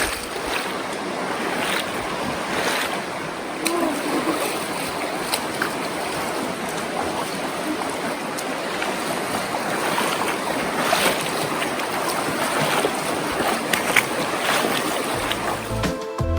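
Shallow river water rushing steadily, with scattered splashes from people wading through it. Music comes in near the end.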